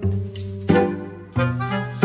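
Background music: pitched instrumental notes, each starting sharply and fading, with a new note about every two-thirds of a second.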